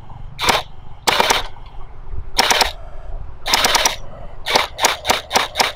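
Electric J10 ACR gel blaster firing gel balls: a few short bursts, then a quick string of about six single shots, roughly four a second, near the end.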